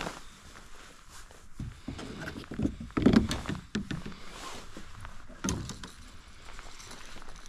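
Knocks, clicks and rattles of fishing gear being handled in a kayak, with a heavier thump about three seconds in and another a couple of seconds later.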